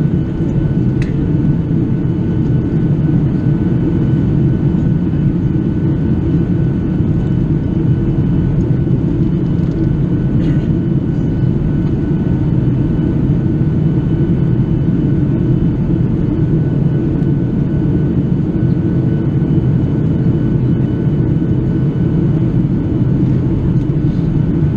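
Steady cabin noise inside a Boeing 737-800 in flight: the low, even roar of its CFM56-7B engines and the airflow past the fuselage, with a faint steady high whine above it.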